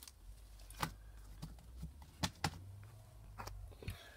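Slime being stretched and squeezed by hand, giving a few sharp sticky clicks and pops, over a low handling rumble.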